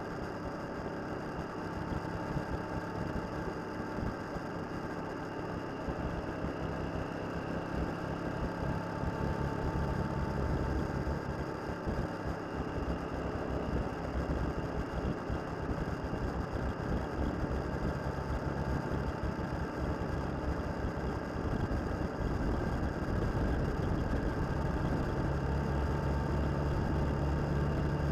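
Suzuki DL650 V-Strom's V-twin engine running on the move, heard from a camera mounted on the motorcycle, over a steady rush of wind and road noise. The engine note gets louder around ten seconds in and again over the last few seconds.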